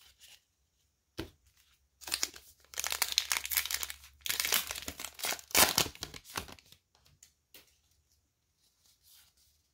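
A Topps Heritage High Number baseball card pack's crimped plastic wrapper being torn open, crinkling for several seconds with a sharp rip a little past the middle. A few faint taps follow as the cards are handled.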